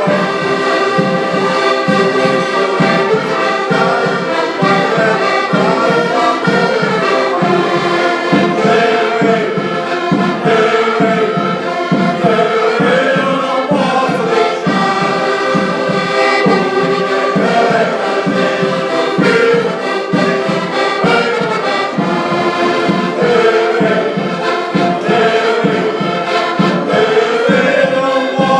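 Music: several voices singing together over instruments with a steady beat.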